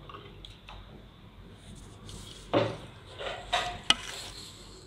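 Raw mutton pieces tipped from a bowl into a pan of water, landing with a few wet plops and splashes from about halfway in. A sharp clink of the bowl against the pan comes near the end.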